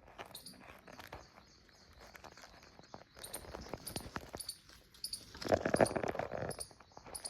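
Small birds chirping, short high chirps repeated many times, over close rustling and clicking; a louder burst of rustling lasts about a second, late on.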